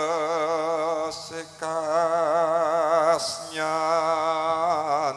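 A man singing solo in the slow, ornamented style of Javanese tembang, holding long notes with a wide vibrato, through a microphone and PA. His phrases break off briefly about a second and a half and three and a half seconds in.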